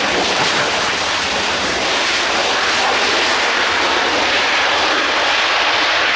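Panavia Tornado's twin Rolls-Royce RB199 afterburning turbofans running with thrust reversers deployed during the landing rollout: a loud, steady jet roar.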